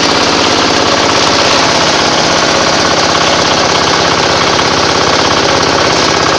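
Organic compost grinder machine running steadily, a loud continuous machine noise with a fast, even pulse.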